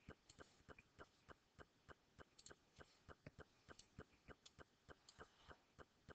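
Faint, evenly spaced clicks, about three a second, over near silence.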